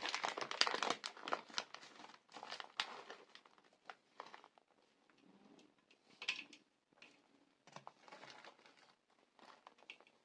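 Thin plastic bag of grated cheese crinkling and rustling as a hand dips in and sprinkles cheese, densest in the first few seconds, then in short scattered rustles.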